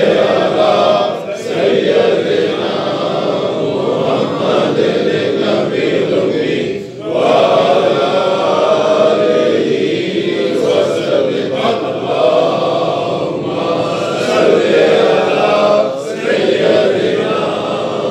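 A group of men chanting together, a continuous chant broken by short pauses three times.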